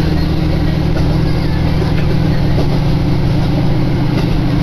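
Diesel railcar running, a steady engine drone with the train in motion, heard from inside the carriage.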